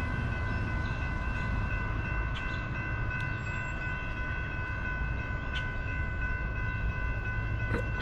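Distant Norfolk Southern freight locomotive horn held on one steady chord of several notes, over a low steady rumble from the approaching train.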